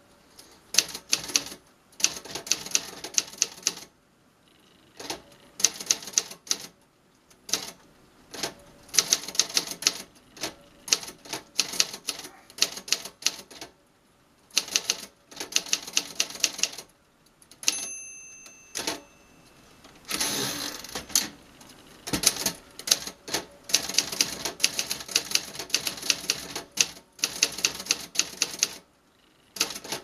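Keys of a 1949 Remington portable manual typewriter clacking in quick runs, with short pauses between bursts. About two-thirds of the way through, the margin bell rings once as the line nears its end. A moment later the carriage is pushed back with a ratcheting return, and the typing starts again.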